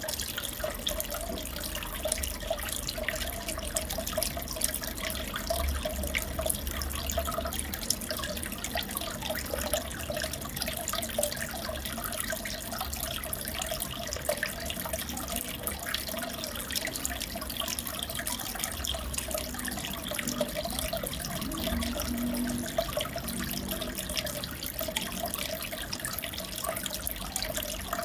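Aquarium water trickling and bubbling steadily, as circulating tank water does, with many fine ticks and a steady hum underneath.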